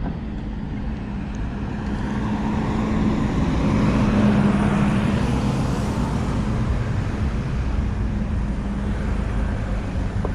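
A motor vehicle driving past close by, its engine hum and road noise swelling to a peak about four seconds in and then fading.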